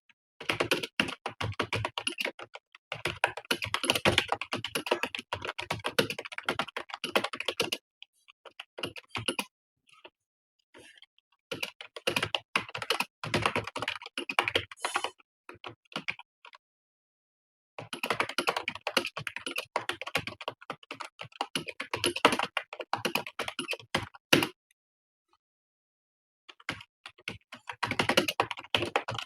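Computer keyboard being typed on in fast runs of keystrokes, broken by pauses of one to a few seconds with only a few scattered taps.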